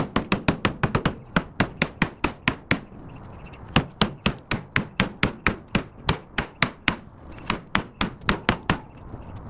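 Hammer rapidly striking a half-inch steel plate on a truck frame rail, about five sharp blows a second in three runs with short pauses about three and seven seconds in, driving the plate off the frame after its bolts have been cut off.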